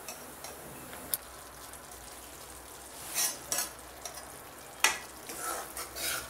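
Tomato-cashew masala paste frying gently in a metal kadhai with a faint steady sizzle, while a steel ladle stirs it. The ladle scrapes the pan in short strokes and clinks sharply against it twice.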